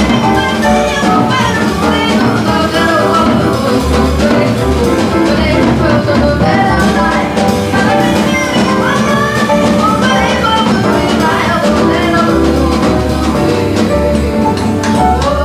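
Live jazz combo playing: a woman sings over walking upright bass, piano and drum kit.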